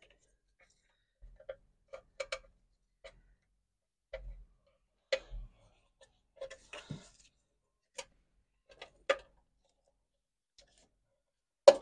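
Scattered, irregular clicks and taps of hand tools against plastic parts and clips in a car's engine bay, as trim pieces are prised loose; a couple of sharper knocks and one dull thud stand out.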